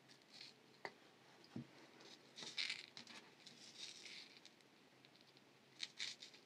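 Faint handling noise of a fine metal necklace chain and small jewelry pliers: a few soft clicks followed by short rustles and tinkles of the chain.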